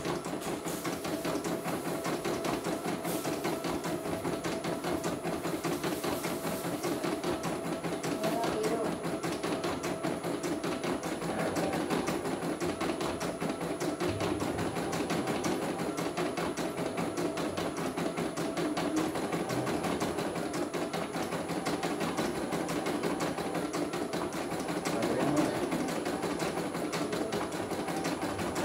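CNY computerized embroidery machine stitching a design: a steady, rapid run of needle strokes as the hoop is driven under the needle.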